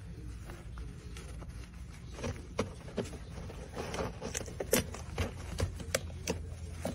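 Scattered light scratches, taps and rustles of a small animal shifting in its bedding while being petted, starting about two seconds in, over a steady low room hum.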